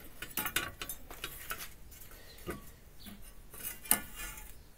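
Irregular light metal clinks, knocks and scrapes from the steel blade of a cane-cutting machete being handled on a wooden workbench, with one sharper knock about four seconds in.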